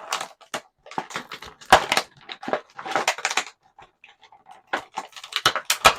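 Stiff plastic action-figure packaging being cut and wrenched open with scissors: irregular crinkling and crackling, with a couple of sharp snaps.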